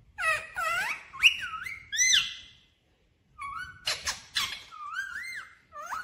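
Rose-ringed parakeet vocalizing in quick runs of short whistled notes that glide up and down, with a brief pause about halfway through.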